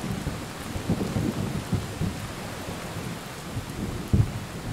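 Thunderstorm ambience: steady rain with low thunder rumbling underneath, and a louder rumble of thunder about four seconds in.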